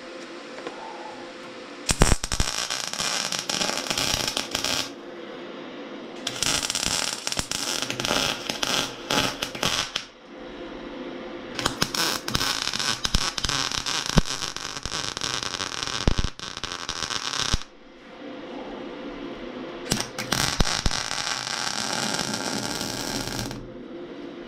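MIG welding on a steel tractor fuel tank: four runs of crackling, sizzling arc, each a few seconds long, with a steady low hum in the gaps between them.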